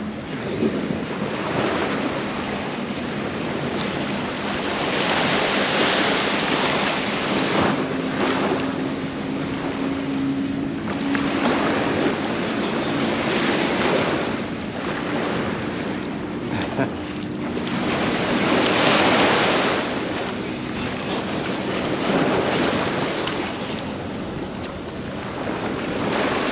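Small surf washing in the shallows, swelling and easing every few seconds, with wind buffeting the microphone.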